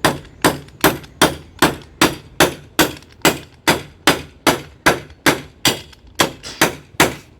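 A hammer striking wood at a steady pace, about two and a half blows a second, each blow sharp with a short ring.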